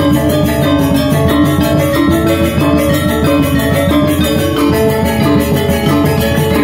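Balinese gamelan gong ensemble playing: bronze metallophones struck with mallets in a dense, steady stream of ringing notes, over two-headed kendang drums.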